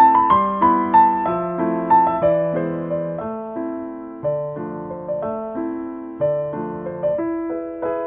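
Background piano music: a slow melody of single struck notes over chords, each note fading before the next.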